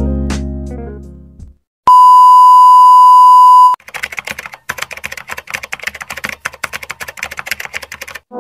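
Music fades out, then a loud, steady, high beep lasts almost two seconds. Then comes a fast, irregular run of keyboard-typing clicks, a typing sound effect under text being typed out on screen.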